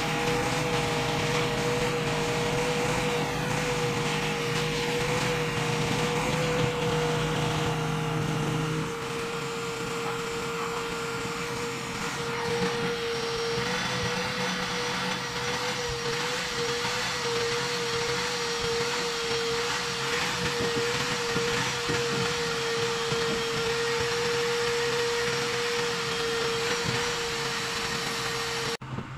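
Shop vacuum running steadily while the boat's upholstery and deck are vacuumed. Its motor whine wavers slightly as the nozzle moves over surfaces.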